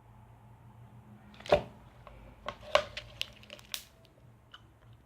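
Slime being squeezed and pulled by hand, giving a series of sharp pops and clicks, the loudest about one and a half seconds in and a quick cluster after it.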